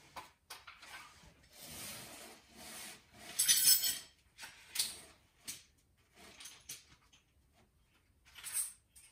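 Hands working with tools and parts: irregular scraping and rubbing with small metallic clinks, loudest in a harsh scrape about halfway through.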